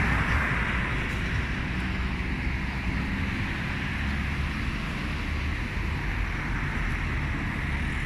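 Steady city street traffic noise, a continuous low rumble of road vehicles.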